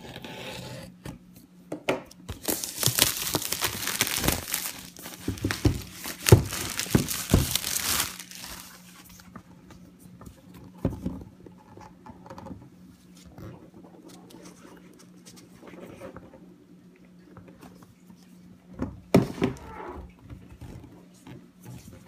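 Plastic wrapping being torn off and crumpled in the hands during an unboxing: dense crinkling for several seconds, then lighter handling noises and one more short crackle near the end.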